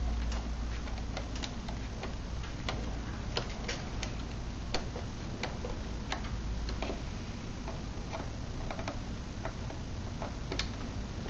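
Irregular small clicks and light metallic taps as an outdoor flood light fixture and its screws are handled and fastened to an electrical box, over a steady low background rumble.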